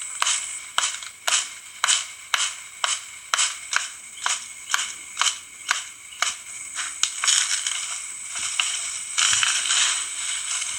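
Hand tool work while an axe is being made: sharp, regular blows about two a second, giving way after about seven seconds to two spells of rougher scraping.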